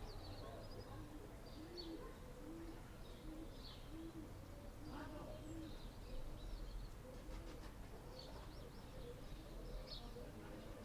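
A dove cooing in a run of short, low, evenly repeated notes, with small birds chirping faintly higher up and a steady low rumble underneath.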